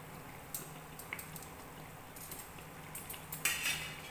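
A malpua frying in hot oil in an aluminium kadai: a faint steady sizzle, with a couple of light clicks of metal tongs against the pan. About three and a half seconds in comes a brief, louder burst of sizzle and clatter as the malpua is handled with the tongs.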